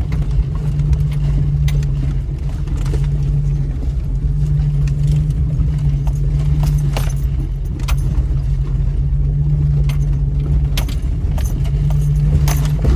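Jeep Cherokee engine running at crawling speed, a steady low drone heard from inside the cab, with frequent clinks and rattles as the Jeep jolts over rough, rocky trail.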